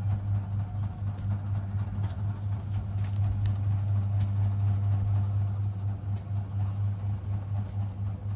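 A steady low hum with a few faint scattered clicks.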